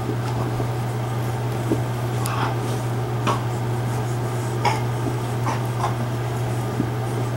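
Light, irregular clicks and scrapes of small metal parts and wire being handled as coil leads are wrapped around the posts of an RDA deck, over a steady low hum.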